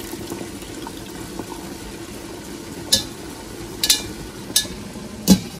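Rice-flour batter pouring in a thin stream into metal leaf-shaped tins on a steamer tray, over a steady low hiss. In the second half, four short, sharp metallic clicks.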